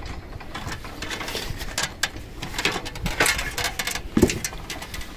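Footsteps and scuffs on wooden scaffold boards, with irregular clicks and knocks and one louder thump about four seconds in.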